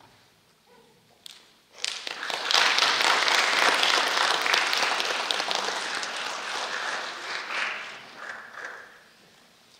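Audience applauding: the clapping starts about two seconds in, quickly builds to full strength, then gradually thins out and stops near the end.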